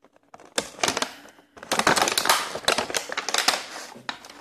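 Clear plastic packaging crinkling and crackling as it is handled, a dense run of small clicks and crackles starting about half a second in and loudest in the middle.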